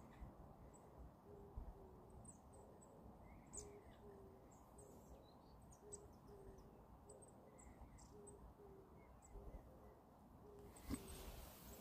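Near silence, with faint low hoots repeated about twice a second and a few tiny high chirps: a distant bird calling.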